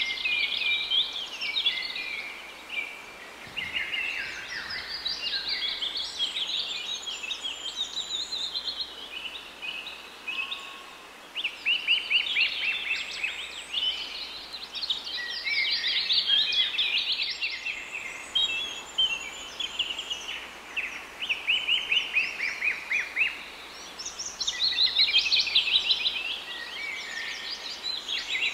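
Small birds chirping and singing in fast runs of high, quick notes, coming in bouts with short lulls, over a faint outdoor hiss.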